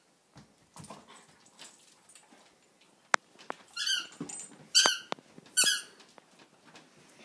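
A dog mouthing a squeaky ball, which squeaks three times about a second apart in the second half. There is a single sharp click a little after three seconds in.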